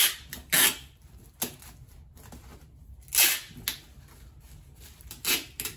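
Cardboard being folded and handled: about half a dozen short, sharp crackles and scrapes, the loudest near the start and about three seconds in.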